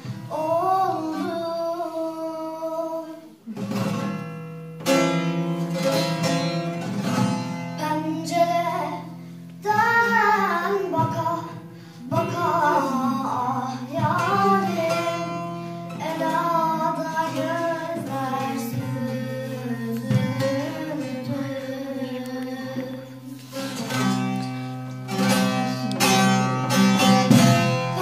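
Bağlama (saz), the long-necked Turkish lute, plucked and strummed as accompaniment to a girl singing a Turkish folk song.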